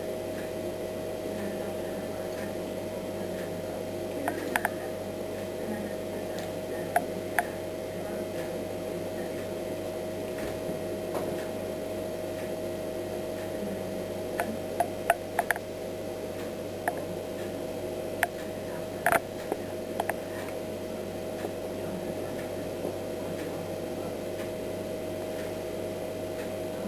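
A cat chattering at a fly: short, sharp clicking chirps, some single and some in quick clusters, with the busiest run about halfway through. A steady hum lies underneath.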